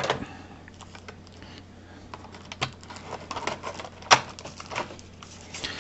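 Clear plastic packaging tray clicking and tapping under the hands as the device is worked out of it, with a sharper click about four seconds in.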